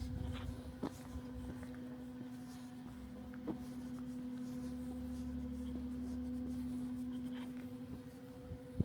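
A steady hum at one low pitch, with a fainter higher tone above it, over a low rumble that grows stronger about halfway through; a few faint clicks sound now and then.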